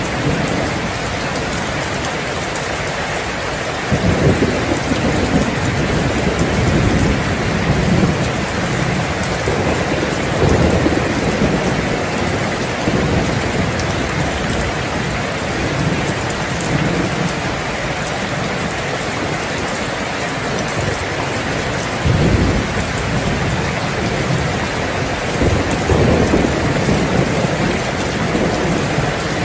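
Heavy rain hissing steadily, with thunder rumbling low several times over it: about four seconds in, through the middle, and twice near the end.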